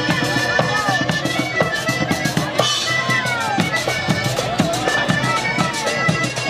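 Panamanian música típica: accordion playing a melody over drums keeping a steady beat.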